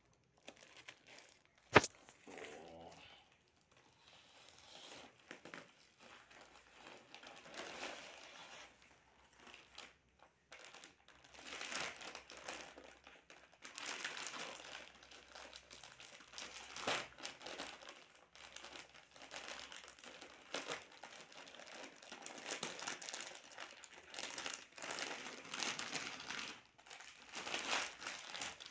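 Plastic packaging crinkling and rustling in irregular bursts as a polythene courier mailer and clear poly bags are handled and opened. A single sharp click about two seconds in is the loudest moment.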